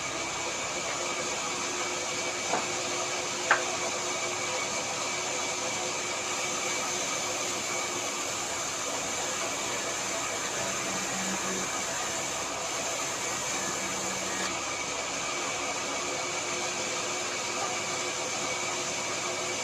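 A woodworking machine running steadily with a constant whine and no change in load, with two sharp knocks a second apart near the start.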